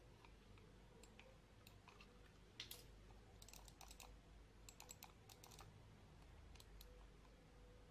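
Faint plastic clicks from a computer mouse being pressed and handled as it is put back together: a single click about two and a half seconds in, then several quick runs of clicks.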